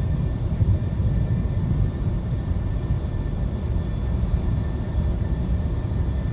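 Steady low drone of a 2017 Buick Regal's engine and tyres, heard inside the cabin while cruising at light throttle. The car has a low-RPM misfire that is felt more than heard, and no separate stumble stands out in the sound.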